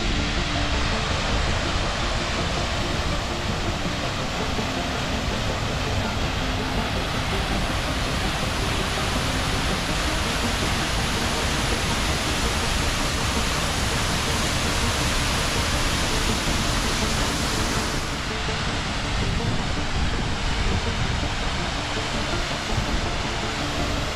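Gluggafoss waterfall rushing steadily, a dense, even hiss of falling water.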